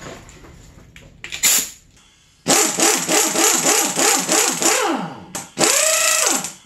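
Pneumatic impact wrench with a 19 mm socket on the bottom bolt of a Honda CR85R fork, hammering in bursts: a short one about a second in, a longer run from about two and a half seconds, and another pull near the end. Its pitch rises and falls with each trigger pull.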